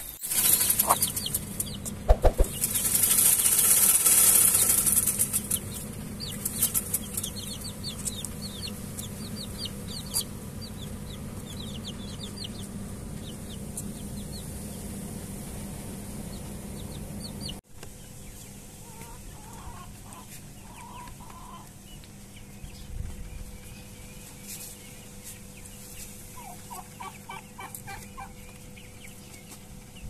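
A sewing machine runs in a short burst of rapid stitching near the start, then high chirps sound over a low hum. Later, chickens cluck in short bouts.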